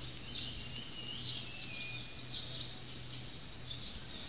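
Small birds chirping in trees, a string of short calls with a thin falling whistle early on, over a steady low hum.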